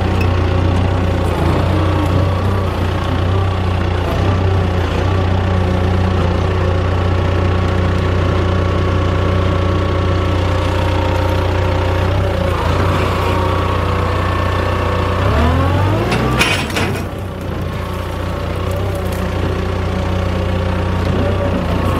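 Forklift engine running steadily under the operator. About sixteen seconds in it revs up with a rising pitch, there is a sharp clunk, and it drops back to a lower, steady run.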